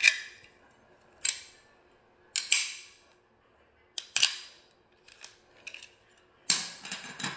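Sharp metallic clicks of a plunger-type barrel lock meter key working a brass barrel lock on an electric meter ring, about one a second. Near the end a quick run of clacks comes as the unlocked lock and ring are handled.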